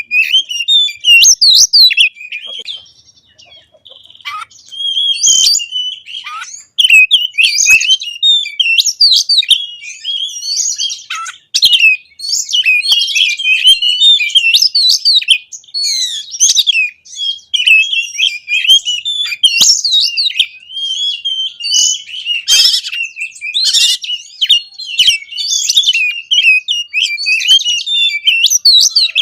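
Oriental magpie-robin (kacer) singing a loud, rapid, run-together song of varied whistles and chattering phrases packed with imitated calls, the energetic 'konslet gacor' style, with a short pause about three seconds in.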